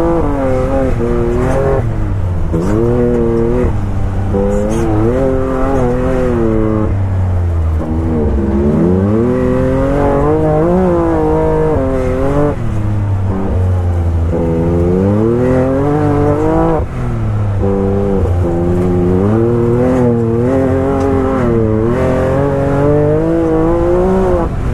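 Can-Am Maverick X3 side-by-side's turbocharged three-cylinder engine revving up and down over and over as it is driven through sand dunes, heard from inside the open cab.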